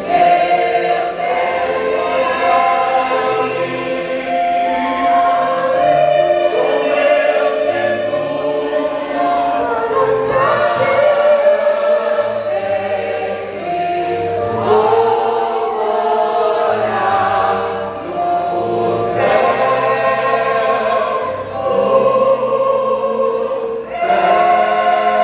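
Vocal group singing a gospel hymn in harmony over a band, with bass and cymbal crashes.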